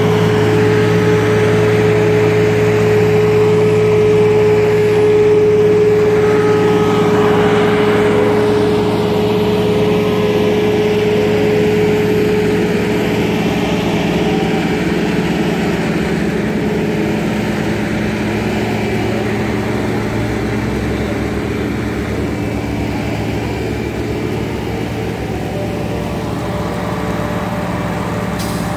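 Diesel engines of asphalt paving equipment, a Roadtec material transfer vehicle and a paver, running steadily under load with a low hum. A steady whine sits over the engine hum and fades out about halfway through.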